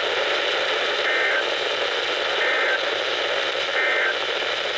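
Three short bursts of EAS (SAME) data tones, each about a third of a second long and spaced a little over a second apart, over steady weather radio static. Coming right after a warning's closing line, they fit the End-of-Message code that closes an emergency alert.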